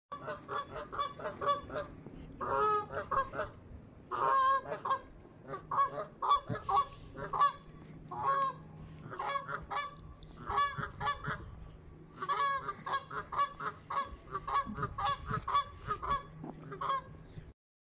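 Canada geese honking over and over in quick runs of calls, cutting off suddenly near the end.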